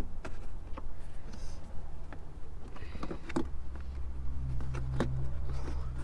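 Scattered plastic clicks and knocks as hands press in the release clips of a pickup's under-hood fuse box cover and work it loose, over a low rumble. A steady low hum comes in about four seconds in.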